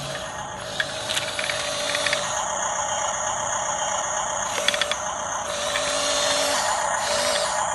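Radio-controlled model bulldozer working: a steady electric motor and gear whine with a clattering, ratcheting mechanical rattle and scattered small clicks.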